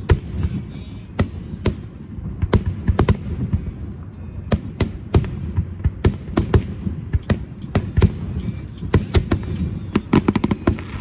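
Aerial fireworks bursting in a rapid, irregular string of sharp bangs over a steady low rumble, closing with a dense burst of quick-fire bangs near the end.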